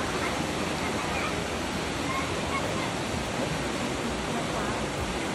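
Fast river water rushing steadily over a standing surf wave, an even, unbroken whitewater noise.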